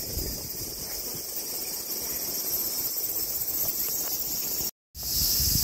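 A steady, high-pitched chorus of insects chirring outdoors. It cuts out for a moment near the end and comes back louder.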